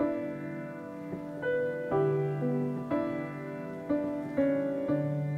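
Background piano music: a gentle melody of struck notes and chords, about one every half second, each fading before the next.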